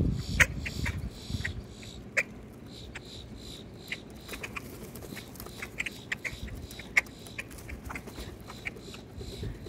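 Scattered short, sharp chips and ticks from a flock of boat-tailed grackles crowding around food, irregularly spaced, with a few louder ones standing out.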